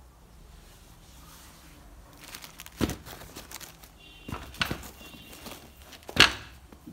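Handling noise as sneakers and their box are moved about: a few knocks and thumps, the loudest a sharp knock about six seconds in, over light rustling.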